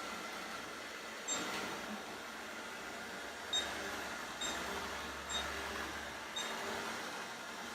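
Robot vacuum cleaner running with a steady whirr, with five short sharp clicks or knocks spread through it.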